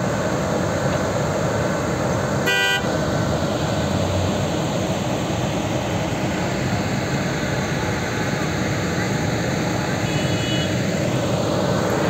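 Steady road traffic noise, with a short vehicle horn toot about two and a half seconds in.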